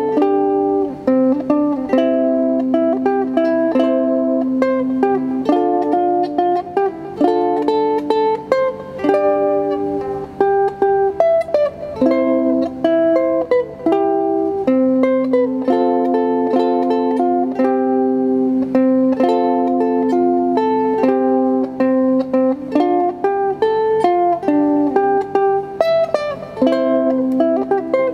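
Solo ukulele playing an arranged pop-song melody over plucked chords, with sharp strummed and picked note attacks that ring and decay.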